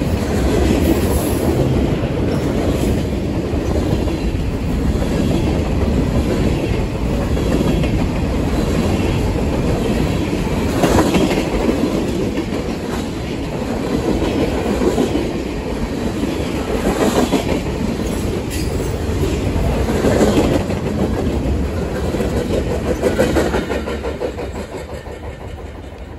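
Freight train cars rolling past: steady wheel-on-rail noise with clickety-clack as covered hoppers and tank cars go by, swelling now and then. It fades away near the end as the last car passes.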